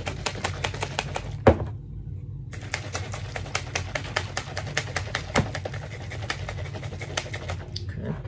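Two plastic shaker bottles of drink mix shaken hard, their contents knocking and rattling in fast clicks, several a second, with one louder knock about a second and a half in.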